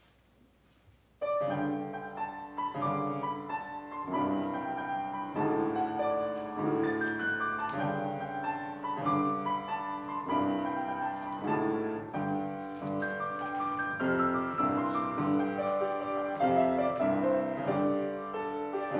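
Piano music begins about a second in after near silence, a slow run of held chords and melody notes.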